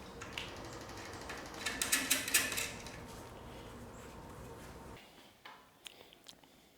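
Hand-tool work on a car's front suspension: metal clicking and rattling, with a burst of rapid ratchet-like clicks about two seconds in. Under it runs a steady hum that stops about five seconds in.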